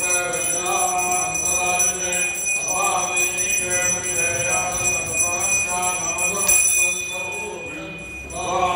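A hand bell rung continuously during the ritual, its high ringing tones steady throughout, with chanting voices beneath in phrases about a second long that pause briefly near the end.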